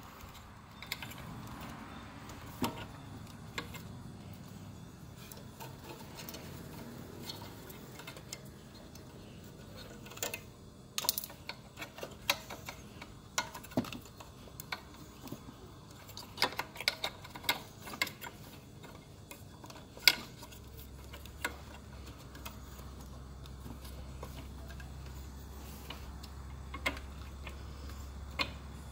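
Scattered clicks and knocks of plastic and metal parts being handled by hand at the secondary air pump's wiring and bracket, irregular and clustered between about 10 and 20 seconds in. A low steady hum comes in about two-thirds of the way through.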